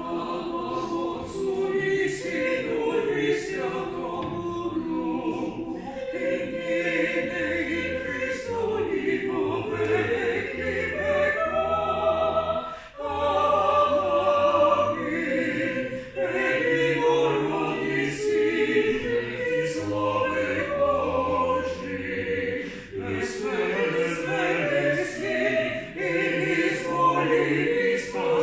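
Small vocal group singing a cappella in several-part harmony, in sustained phrases with brief breaks about 13, 16 and 23 seconds in.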